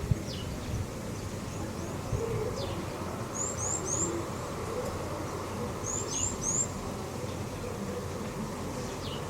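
A bird calling repeatedly: a quick run of three high chirps every two to three seconds, with single thin falling whistles in between, over a steady low background noise.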